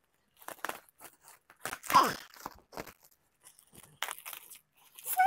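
Plastic bubble-wrap packaging being cut with scissors and pulled, crinkling and tearing in short, irregular bursts. The loudest tear comes about two seconds in.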